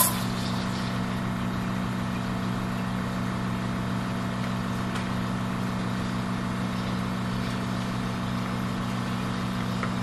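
Lelit Bianca espresso machine's rotary pump humming steadily while it pushes water through the coffee puck during a shot, with an even hiss above it.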